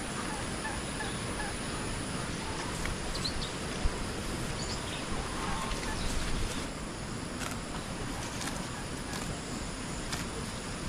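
Steady outdoor background noise with a few faint bird chirps and a single sharp click about four seconds in.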